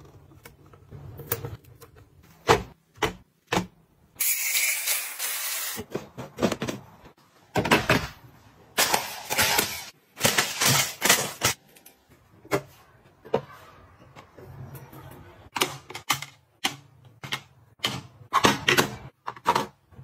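Plastic storage containers and lids being handled, a run of sharp clicks, taps and rattles, with a rushing hiss of about two seconds near the start. Near the middle, a cereal dispenser's twist knob clicks round.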